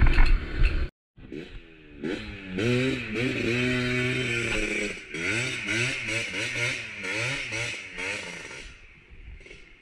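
Motorcycle engine revving up and down again and again, its pitch rising and falling in quick blips before fading near the end. Before that, loud rumbling cuts off suddenly about a second in.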